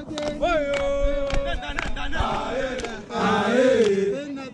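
A group of men chanting and singing together: one voice holds a long note about half a second in, and from about three seconds several voices sing at once, with sharp short beats scattered through.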